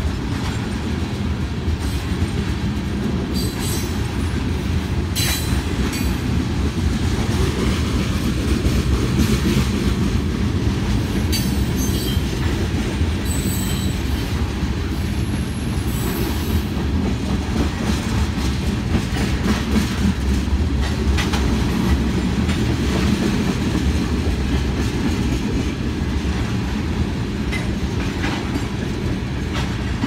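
Freight train tank cars rolling past: a steady low rumble of steel wheels on the rails with clickety-clack, and a few brief high wheel squeals.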